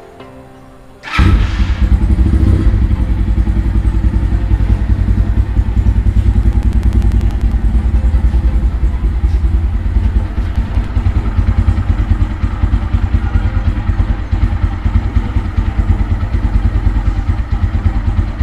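Taro GP One V1 motorcycle engine idling, coming in suddenly about a second in and then running steadily, with its valve-adjuster (tappet) noise. The owner hears an extra harsh, cracking edge to it, which he puts down to the newly poured Liqui Moly 10W40 semi-synthetic oil and expects to smooth out after some riding.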